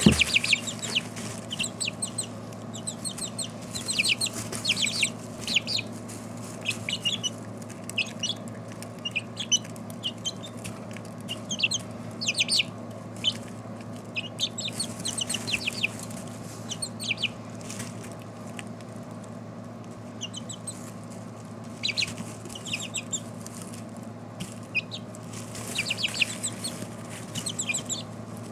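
A flock of four-week-old chicks peeping, short high chirps coming in quick runs throughout, over a steady low hum. A sharp click comes right at the start.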